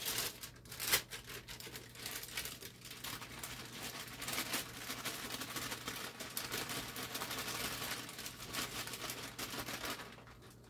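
Continuous crinkling and rustling of packaging, with many small crackles, as biscuit mix is added by hand to a stand mixer bowl; a faint steady low hum runs beneath.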